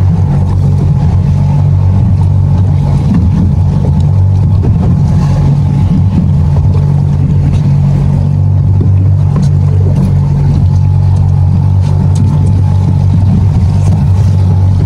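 Boat outboard motor running at a steady, unchanging speed, a constant low drone, with water and wind noise.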